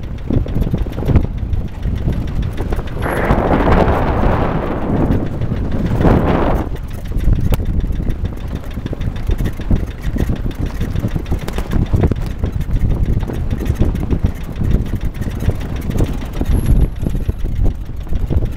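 Vehicle driving slowly over a rough, stony mountain track, heard from inside: a low engine and tyre rumble with constant jolts and knocks from the rocks. A louder rushing noise comes in about three seconds in and dies away about seven seconds in.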